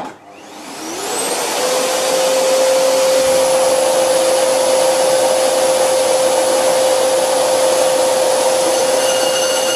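Karger bench lathe, run by an electric motor on a frequency drive (VFD), starting up with a cast-iron brake disc in the chuck. A whine rises over about a second and a half and settles into a steady tone over a loud, even hum. Several higher steady tones join near the end.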